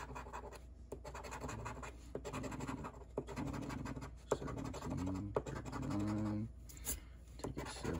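A coin scraping the latex coating off a paper scratch-off lottery ticket in quick, uneven back-and-forth strokes.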